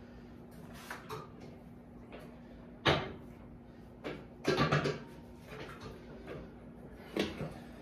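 Metal clanks and knocks from a multi-station home gym machine being handled and adjusted: one sharp knock about three seconds in, a cluster of knocks a second later, and another near the end, over a faint steady hum.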